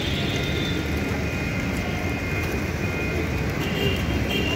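Steady low rumble of city traffic, with faint thin high tones coming and going.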